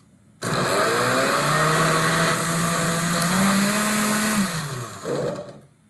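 Countertop blender motor running, puréeing chunks of fresh cantaloupe and mango. It starts suddenly about half a second in, its whine rises in pitch partway through as the fruit breaks down, then winds down near the end, with one brief extra pulse.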